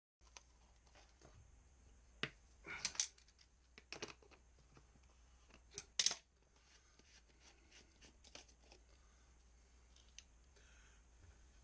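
Scattered light clicks and knocks from cans of PVC primer and PVC cement being handled and set down on a concrete floor, with a louder clack about three seconds in and the loudest about six seconds in.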